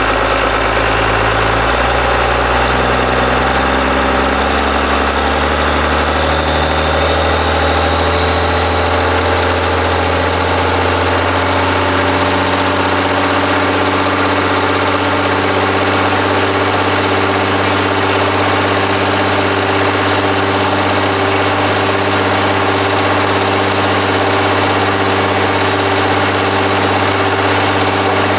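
Irrigation pump engine, fitted with an HHO generator, running loud and steady; its pitch climbs slowly over the first ten seconds or so as it speeds up, then holds even.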